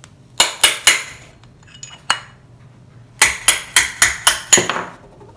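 Hammer striking a steel drift punch set against a bicycle drum brake hub's bearing, driving the bearing out of the hub: sharp metallic blows with a short ring, three in quick succession, a single one, then a fast run of about six.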